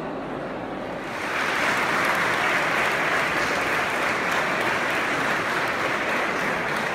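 A crowd applauding. The clapping swells about a second in and dies away near the end.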